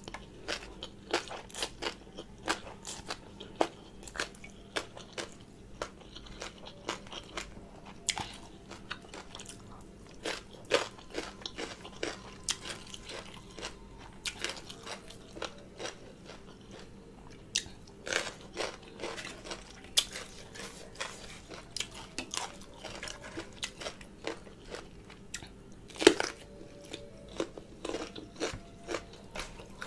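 Close-miked chewing and crunching of spicy green papaya salad with raw shrimp and rice noodles: wet, crisp bites and mouth clicks coming irregularly throughout, with one sharp, loud crunch about 26 seconds in.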